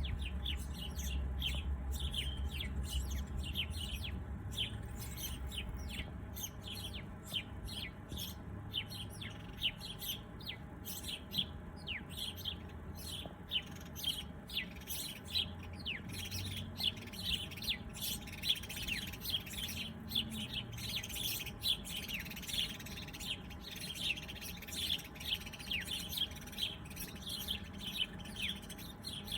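Several small birds chirping and calling at once, many short, quick notes and downward-sweeping chirps overlapping, with a low rumble in the first few seconds.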